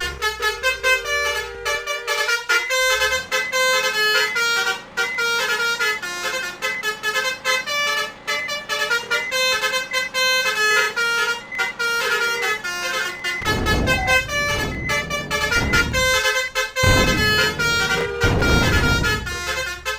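Multi-trumpet 'telolet' basuri horn playing a melody, its notes stepping up and down in quick succession. A deep rumble, like a heavy vehicle's engine, joins it about two-thirds of the way in.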